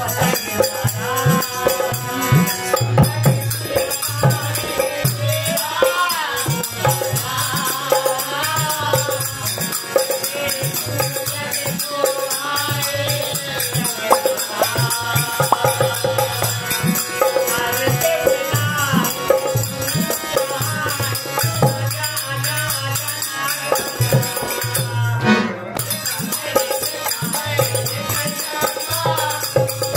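A man sings with harmonium accompaniment, over continuous jingling from small hand cymbals and rattling hand percussion.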